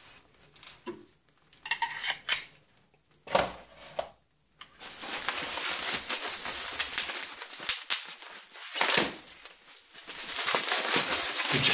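Bubble wrap being unwrapped by hand, the plastic crinkling and rustling. Only scattered handling clicks and a few brief rustles at first, then steady crinkling from about five seconds in, loudest near the end.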